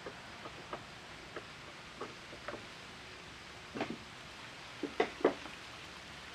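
Scattered light clicks and taps of small parts and tools being handled at a lathe, with a few louder knocks about four and five seconds in, over a steady hiss.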